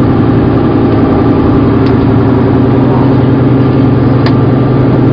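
A loud, steady engine-like drone with a low hum, plus a couple of faint clicks.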